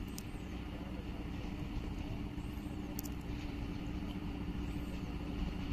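ZCU-20 (GE U20C) diesel-electric locomotive running with a steady low drone as it approaches at the head of a passenger train, growing slightly louder.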